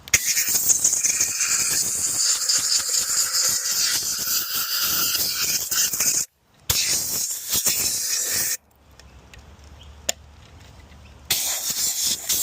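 Compressed-air blow gun hissing in long blasts as it blows dust out of vacuum cleaner parts. The air stops briefly about six seconds in and again for about three seconds past the middle, with a single click in the pause, then blows again near the end.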